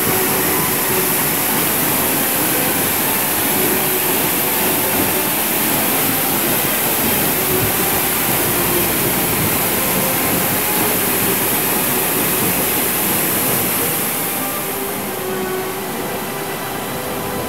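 Steady rush of falling water from a waterfall, even and unbroken with a strong hiss. About fourteen seconds in it becomes somewhat quieter and less hissy.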